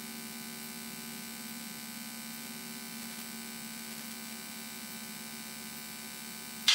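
Steady electrical hum on the cockpit intercom and radio audio feed, with a short loud hiss right at the end.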